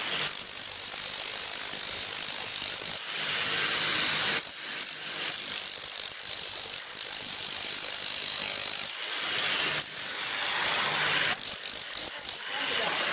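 Electric demolition hammer with a chisel bit under a DustRam dust-extraction shroud, hammering up saltillo tile, with the tile cracking and chips clattering. It runs in long bursts with brief pauses and turns choppy near the end.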